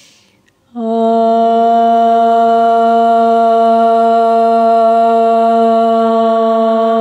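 A woman's voice chanting a long, steady "Om" on one unchanging pitch, starting sharply about a second in just after the end of an in-breath and held through to the end.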